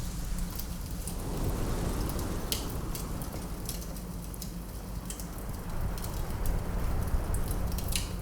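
Wood fire crackling, with scattered sharp pops and snaps, over a steady low rush of wind.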